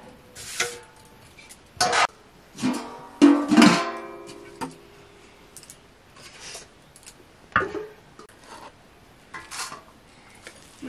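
Metal dishes and utensils clinking now and then. About three seconds in, one metal vessel is struck and rings out for about two seconds.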